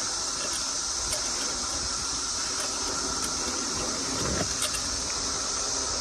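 A really loud, steady chorus of periodical cicadas: a continuous high-pitched drone that does not let up. A low rumble runs underneath, with a brief thump about four seconds in.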